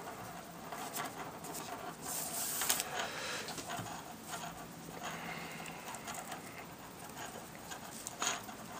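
Soft rustling and scraping of paracord being handled and pulled into the first stitch of a Solomon bar weave, with a brief louder hiss of cord sliding about two seconds in.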